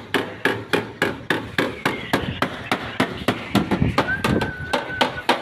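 Hammer blows on a car's sheet-metal body panel, a rapid even rhythm of about four strikes a second, as a dent is beaten out. A short high steady tone sounds a little after four seconds in.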